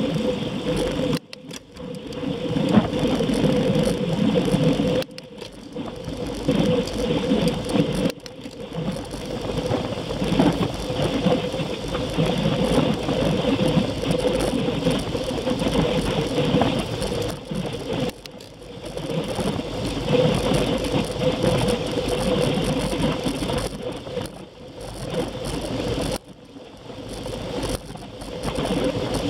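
Bicycle ridden at speed on asphalt: a continuous whir of tyres and drivetrain with rattling, its level dipping briefly several times.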